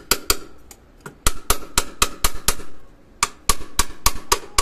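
Small hammer lightly tapping the top of a stainless-steel sink tap, about four strikes a second in three runs with short pauses between, each strike with a brief metallic ring. The tap's refitted spindle head is being gently driven home, done with care because it can crack if struck too hard.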